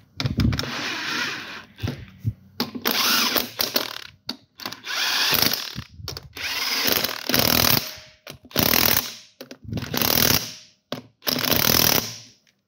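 Impact wrench driving and hammering wheel lug nuts tight in about seven short bursts, working around the nuts in a crisscross pattern.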